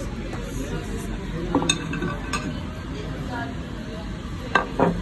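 Restaurant table clatter: a steady background hum of the dining room with a few sharp clinks of tableware, the loudest pair near the end.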